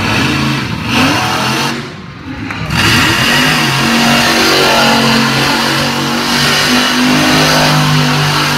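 Monster truck engine revving hard, with a brief dip about two seconds in, then held at steady high revs as the truck spins its tyres in a donut.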